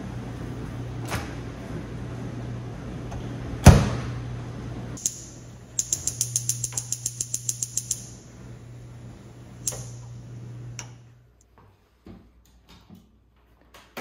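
Built-in Whirlpool microwave running with a steady low hum, with one loud clunk a few seconds in. Then a gas range's spark igniter clicks rapidly, about seven clicks a second for two seconds, as a burner is lit. The hum stops near the end, leaving a few faint knocks.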